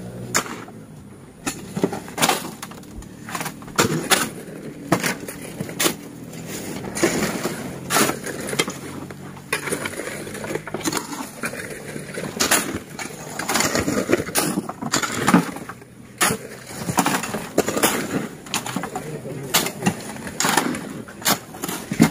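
Shovels and hoes scraping and chopping into sand and gravel, in many irregular strokes.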